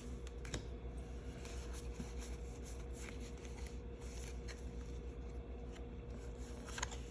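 Pokémon trading cards handled and slid through the hands one at a time: faint rustling with light flicks and taps of card stock.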